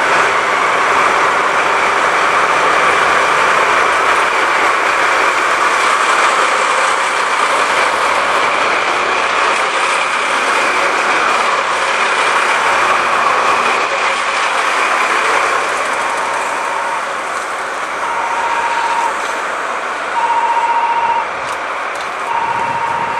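JNR Class DD51 diesel-hydraulic locomotive, its twin V12 diesel engines running hard as it pulls away, with a steady high whine, easing off as it moves away. From about two-thirds through, a short electronic beep repeats about every two seconds.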